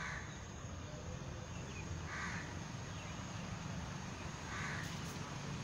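A crow cawing three times, short hoarse calls a couple of seconds apart, over a low steady rumble.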